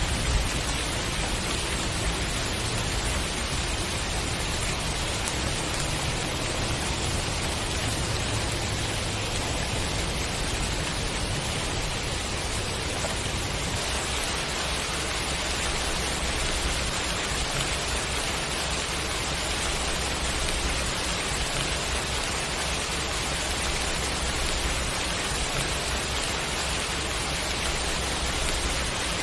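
Steady rain shower: an even, unbroken hiss of falling raindrops.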